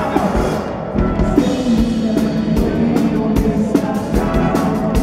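Live band music, with a drum kit keeping a steady beat about twice a second under sustained instrument lines.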